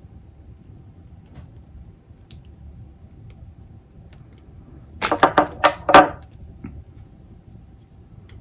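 A quick clatter of a metal hand tool, five or six sharp clicks and rattles within about a second, as a yellow-handled wire crimping tool is picked up off the table.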